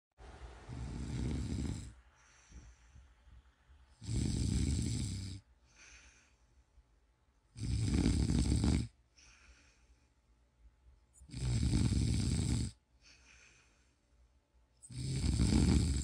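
A man snoring in his sleep: five loud snores, about one every three and a half seconds, each followed by a softer breath out.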